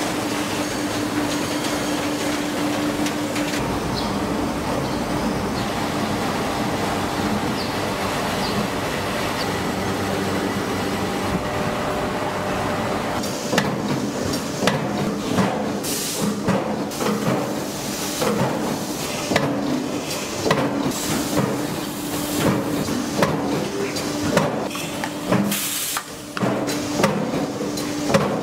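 Factory machinery running with a steady hum. About halfway through, irregular sharp clanks and knocks of machine parts start and go on to the end.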